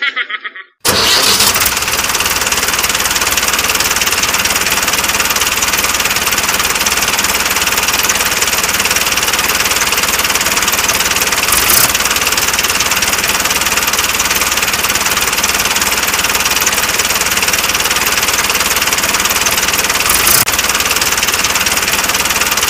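Tractor engine running steadily, starting about a second in, with two brief sharp clicks, one near the middle and one near the end.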